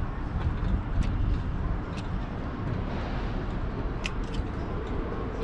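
Steady low rumble of wind on the microphone, with a few small sharp clicks as a screwdriver pushes the terminal pins out of a plastic Deutsch connector plug.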